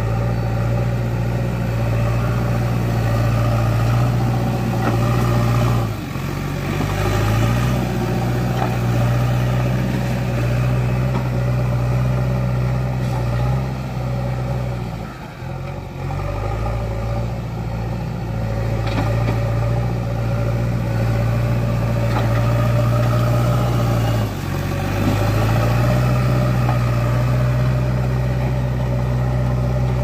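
JCB 3DX backhoe loader's diesel engine running steadily under load as its front bucket pushes soil. The engine note dips briefly three times: about six seconds in, more deeply around the middle, and again about two-thirds of the way through.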